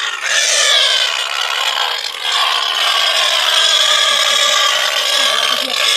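Domestic pig squealing loudly in distress as it is lifted and held: two long, high-pitched screams, the second starting about two seconds in.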